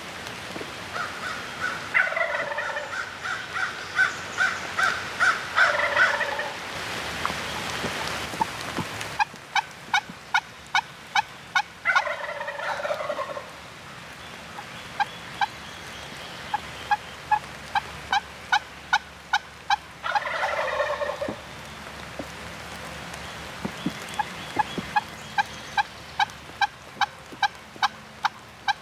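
A wild turkey gobbler gobbling several times, each gobble a short falling rattle coming every several seconds. Between gobbles there are runs of sharp, evenly spaced clicks, about three a second.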